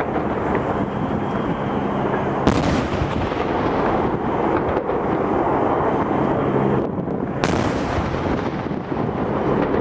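Two shots of a gun salute from ceremonial artillery, about five seconds apart, each a sharp report with a short tail, over a steady rushing background noise.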